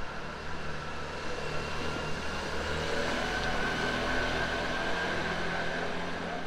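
Street traffic: a motor vehicle's engine running close by, with a steady low hum that grows a little louder about three seconds in, then eases.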